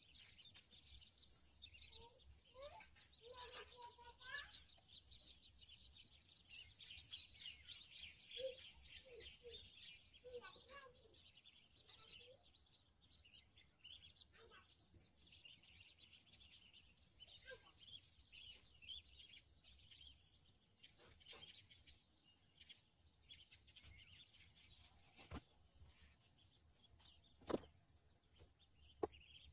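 Ducklings peeping softly, many short high chirps overlapping, with a few lower calls in the first few seconds. Two sharp clicks come near the end, the louder one about two seconds before the end.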